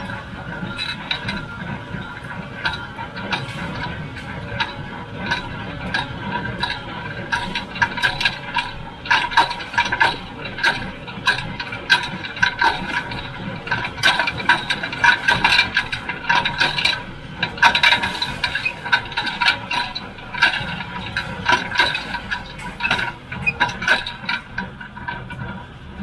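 John Deere 348 small square baler running in the field: a continuous clatter of rapid clicks and rattles over a steady whine, with a low engine hum underneath. The rattling grows busier about a third of the way in and eases again near the end.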